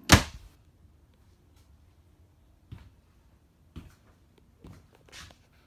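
A door inside a travel trailer shuts with one loud knock right at the start, followed by a few soft knocks and rustles a second or so apart.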